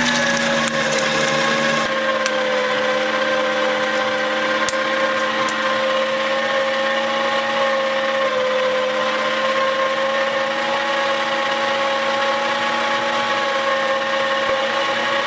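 Electric meat grinder motor running with a steady whine, with a few light clicks in the first few seconds.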